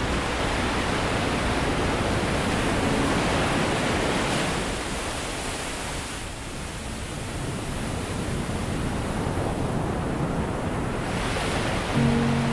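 Ocean surf: a steady rushing wash of waves that eases off in the middle and builds up again.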